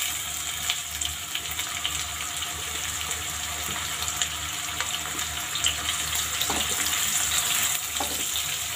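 Sliced onions sizzling in hot oil with cumin seeds in a kadhai: a steady hiss with small crackles. Near the end a spatula stirs through them.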